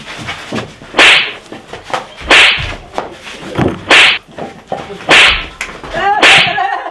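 Blows landing in a staged beating: five loud, sharp whip-like smacks, about one every 1.2 seconds.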